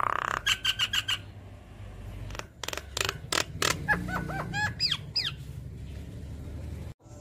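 Javan myna singing a varied, chattering song: a harsh rasping note, then a rapid run of clicks and short notes, then a quick string of whistles sliding up and down, dying away before the end.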